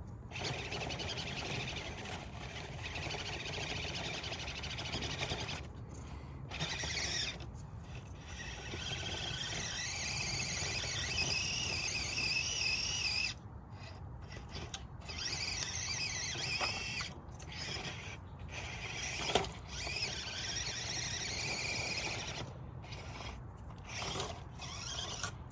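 Small electric motor and gears of an Axial SCX24 1/24-scale RC crawler whining as it crawls. The whine comes in stop-start spells with short gaps between throttle pulls.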